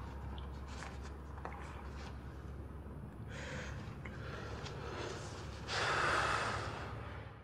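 Quiet room tone with a steady low hum, faint small clicks and soft breathing. A louder breathy rush of noise comes about six seconds in, then dies away.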